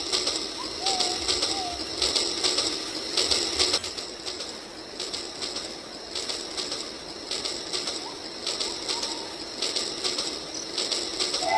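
Shallow stream running over rocks: a steady rushing with irregular small splashes and clicks. A bird gives two short wavering calls about a second in.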